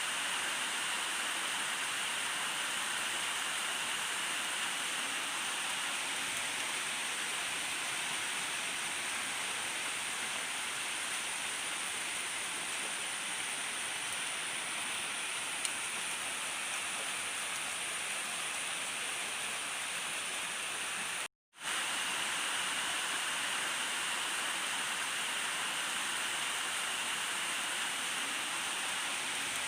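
Steady heavy rain falling, an even hiss with no thunder. The sound drops out completely for a split second about two-thirds of the way through, then resumes unchanged.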